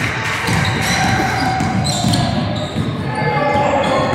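Basketball game sounds in a gymnasium: a ball bouncing on the court, with a couple of sharp impacts, over overlapping voices echoing in the large hall.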